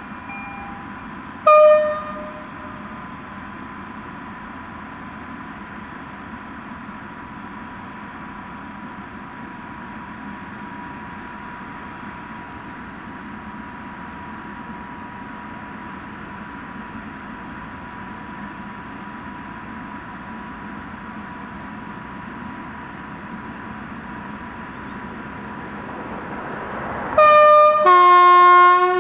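PKP Cargo ET22 electric freight locomotive pulling away slowly with its train of flat wagons, a steady thin whine over the running noise. It gives a short horn blast about a second and a half in, and near the end a loud two-note horn, a higher note then a longer lower one: the Rp1 "attention" signal sounded on departure.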